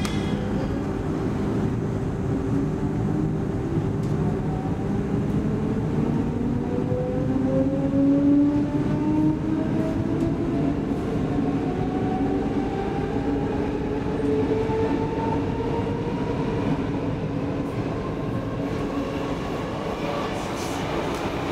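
Inside an X10 electric commuter train pulling away from a station, its traction motors whine in several tones that rise steadily in pitch as it speeds up, over the rumble of wheels on rail. Near the end a rush of noise swells as the train passes close alongside something.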